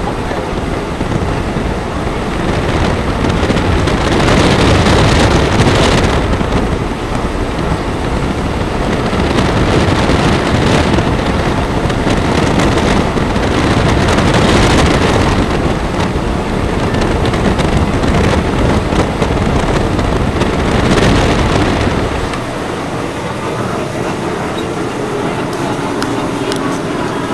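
A moving train, heard as a continuous rumble with wind gusting on the microphone; the noise swells and eases several times, and the deep rumble drops away about 22 seconds in.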